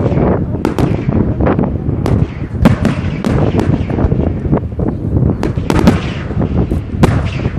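Fireworks display: aerial shells bursting in quick succession. Sharp bangs come about two a second over a constant low rumble of further reports.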